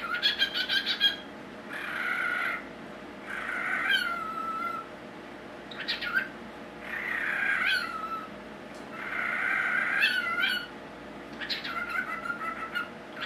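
Cockatiel mimicking a telephone ring, a rapid pulsing trill at the start and again near the end. Between them come raspy whistled calls, several falling in pitch at the end, like mimicked words.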